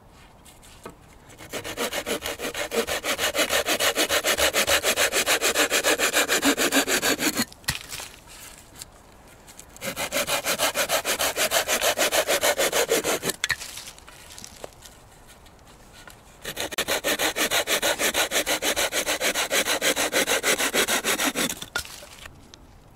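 Small hand saw cutting through a dead branch braced on a log, in three bouts of fast, even back-and-forth strokes with short pauses between them.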